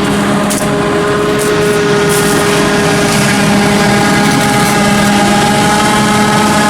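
Heavy farm machinery running steadily: the engines of a self-propelled forage harvester and tractors hauling trailers while chopping maize for silage. One engine note rises slightly in pitch partway through.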